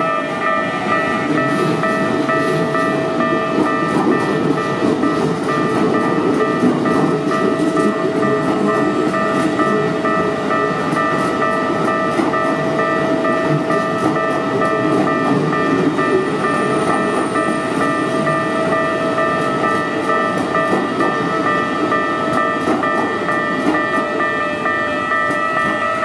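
Japanese level crossing warning bell ringing without a break over the rumble and wheel clatter of a Keikyu New 1000 series electric train running past close by.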